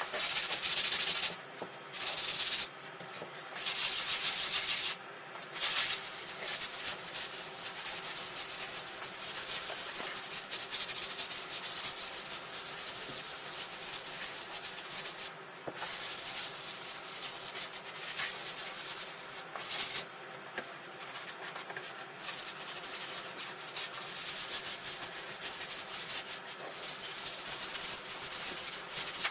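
Hand sanding of the wooden desk frame with a sandpaper block, rubbed back and forth. A few separate scratchy strokes come in the first six seconds, then the rubbing runs on almost without a break.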